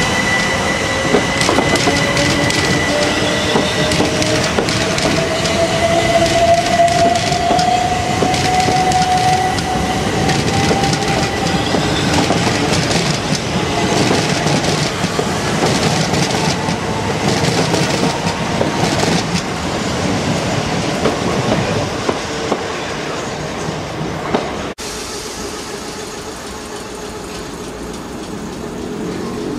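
Third-rail electric multiple units passing close by. Traction motors give a whine that rises steadily in pitch over the first ten seconds or so as a train picks up speed, and the wheels clatter over rail joints and pointwork. About 25 seconds in, the sound cuts to a quieter train at a platform, with a fresh rising motor whine near the end.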